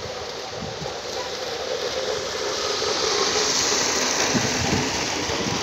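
Model train running along its track, a steady rumbling hum with a hiss that swells about three seconds in.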